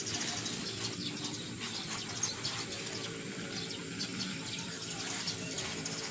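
Dry rice hulls rustling and scraping as they are scooped by hand and trowel from a sack and dropped into a basin of potting mix, a continuous crackly rustle made of many quick small ticks.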